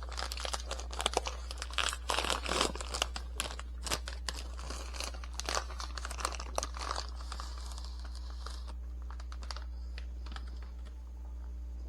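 The individual wrapper of a frozen ice cream bar being torn open and handled: a rapid run of crackles for about seven seconds, then only a steady low hum.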